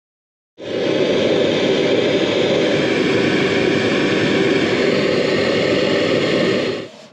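Hand-held gas blowtorch burning with a steady hiss as its flame heats a soldered joint on copper heating pipe. The hiss starts abruptly about half a second in and cuts off shortly before the end.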